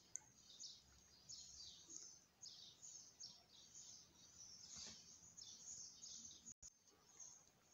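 Near silence: room tone with faint, repeated short high chirps of birds in the background.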